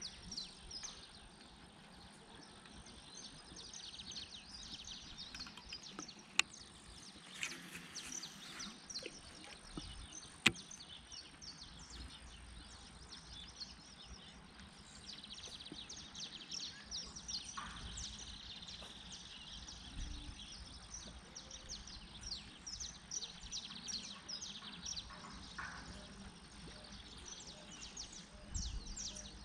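Birds chirping and calling in a steady outdoor chorus, with two sharp clicks about six and ten seconds in.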